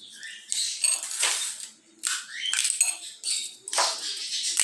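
Dry lima bean (feijão fava) pods being cracked open by hand: several crackling snaps of the brittle pod shells, with seeds clicking onto a ceramic plate.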